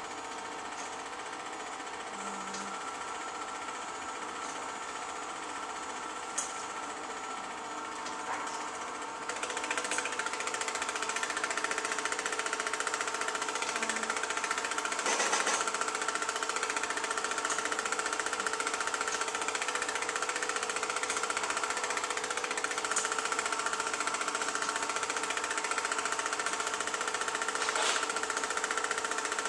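Film projector running, a steady fast mechanical clatter with a constant whine; it grows louder about nine seconds in.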